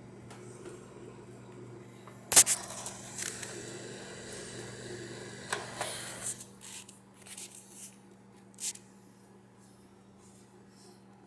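Microwave oven running with optical discs inside arcing: a loud snap about two seconds in, then several seconds of crackling and popping as the discs' metal layer sparks, with a few more sharp pops later, over the oven's steady hum.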